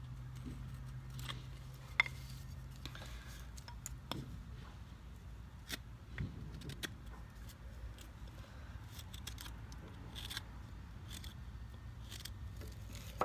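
Small whittling knife cutting into a wooden spoon blank, notching where the handle begins: a run of short, scattered scraping cuts and clicks as the blade bites the wood, with one sharper click about two seconds in.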